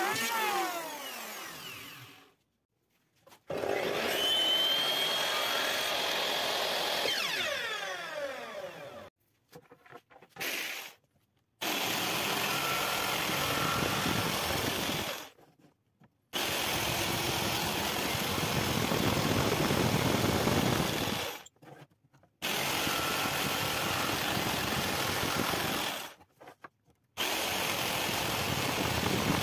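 A Stanley electric jigsaw cutting a thin wooden board, in several runs of three to five seconds that each stop abruptly. At the start an electric planer's motor winds down, its pitch falling.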